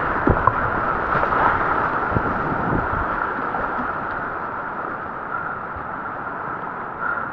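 Whitewater rushing close around a kayak running a rapid, with a few low thumps in the first three seconds; the rush slowly fades as the boat comes out into calmer water.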